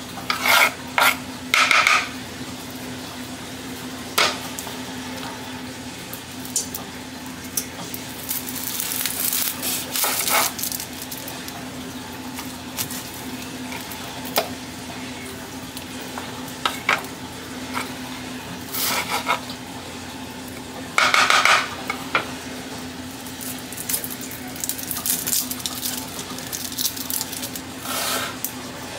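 Chef's knife slicing bell pepper and onion on a wooden cutting board: irregular knocks of the blade against the board, with the loudest clusters near the start and about three-quarters through, over a steady low hum.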